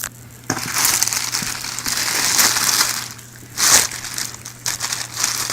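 Packing material in a shipping box rustling and crinkling as hands dig through it, in uneven surges with one short loud crackle about two thirds of the way in.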